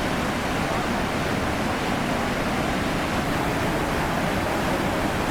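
Iguazu Falls' Devil's Throat, a huge volume of water plunging and crashing, heard as a steady, unbroken rush of noise.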